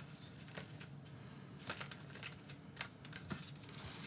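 Faint, irregular small clicks and rustles of kraft cardstock pieces being handled and pressed together by hand, a glued part being set onto another.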